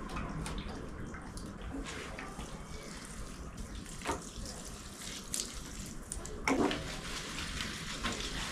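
Water pouring from a plastic watering can and splashing into potted plants, with a few brief light knocks and clicks.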